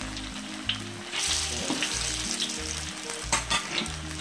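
Hot oil sizzling as battered, vegetable-stuffed tofu deep-fries in a wok, with a metal spatula scraping and clicking against the wok, sharpest a little past three seconds in. Soft background music with a steady, pulsing bass line runs underneath.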